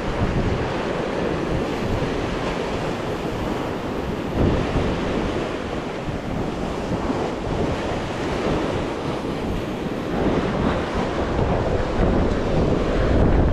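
Sea surf washing against the shore, with wind buffeting the microphone.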